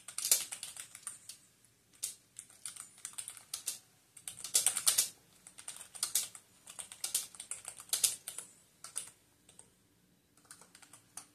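Typing on a computer keyboard: quick runs of key clicks broken by short pauses, with a last brief run near the end.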